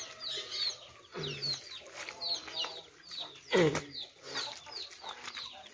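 Chickens clucking, with a run of short, high, falling chirps throughout and a couple of louder calls that sweep down in pitch, about a second in and again past the middle.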